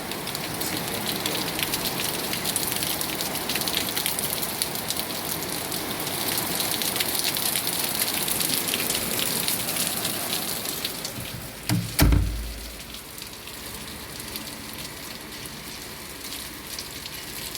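Rain falling steadily. About twelve seconds in there is one loud, low thump, and after it the rain is quieter.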